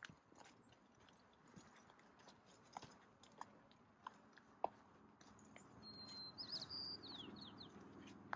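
Faint crunching footsteps on a dirt trail, irregular single steps. About six seconds in, a bird sings a short phrase of high chirps, the later notes falling in pitch.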